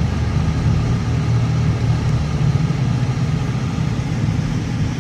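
Steady low rumble of road and engine noise inside a car's cabin while driving.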